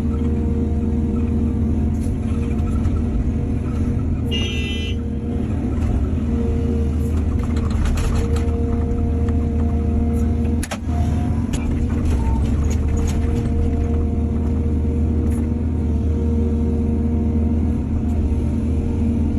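Excavator's diesel engine running steadily under load, with a brief high squeal or whine about four seconds in and a few scrapes and knocks around the middle.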